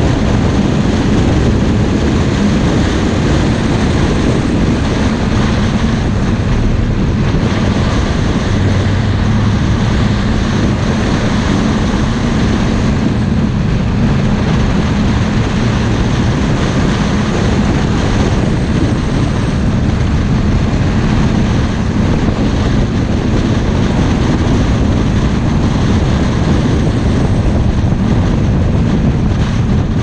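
Car driving at a steady speed: an unbroken rush of wind and road noise over a low, steady engine hum.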